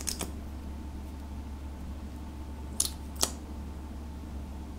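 Small plastic clicks from handling a lip tint bottle and its cap: a couple right at the start, then two sharp clicks about half a second apart around three seconds in, over a low steady hum.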